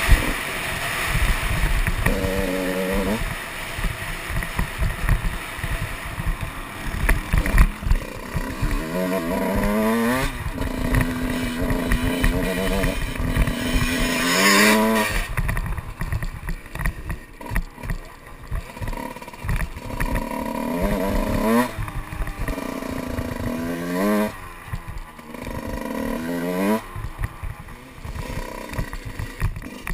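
Motocross bike engine revving hard and repeatedly climbing in pitch, with drops between climbs as the throttle is rolled off and back on, over heavy wind buffeting on the microphone.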